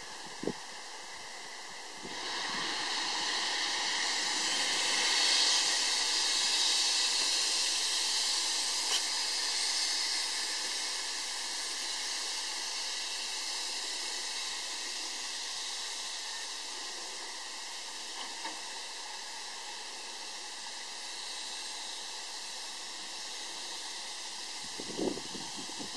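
Steam hissing from the Saxon IV K narrow-gauge steam locomotive 99 1594-3: a steady hiss that starts about two seconds in, is loudest a few seconds later, then slowly fades.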